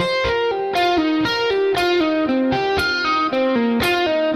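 Electric guitar playing a fast descending pentatonic run of single notes in sixteenth notes grouped in fives, each short group stepping down the scale and then starting again a little lower.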